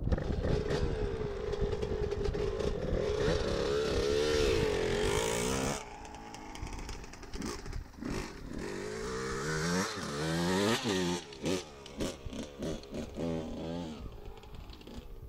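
A 1992 Suzuki RM125 two-stroke 125cc dirt bike engine is ridden under throttle at a steady pitch, then revs up. About six seconds in, the engine note drops suddenly and gets quieter. It then revs up and down several times, with short throttle blips near the end.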